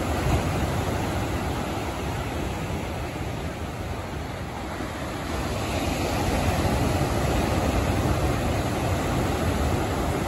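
Heavy ocean surf breaking on a beach: a continuous rush of waves and foam, growing louder about six seconds in.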